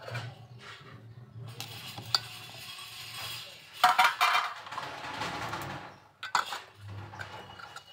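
Stainless-steel cookware handled by hand: the pot lid clinks and is lifted off with a loud clatter about four seconds in. A steel ladle then scrapes in the pot of curry, and metal pot tongs click sharply near the end.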